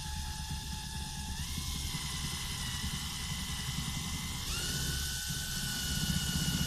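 Small electric power-tool motor running with a steady whine that steps up in pitch twice, about a second and a half in and again about four and a half seconds in, over a low rough rumble.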